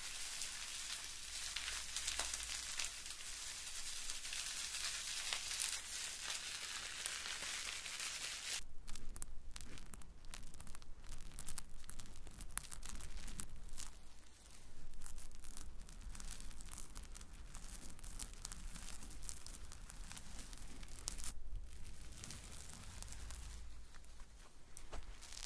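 Bubble wrap crumpled and squeezed between hands close to the microphones, a dense continuous crinkling crackle. About nine seconds in it gives way to fingers tapping and scratching on a red bath sponge: sparser scattered clicks and soft scrapes.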